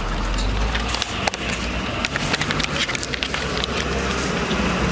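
Street traffic with the low rumble of a bus engine, overlaid by a run of sharp clicks and knocks in the middle.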